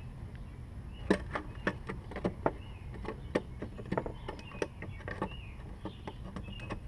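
A quick, irregular series of sharp clicks and knocks from mower parts and tools being handled while a new drive belt and self-propel parts go back onto a Lawn-Boy mower.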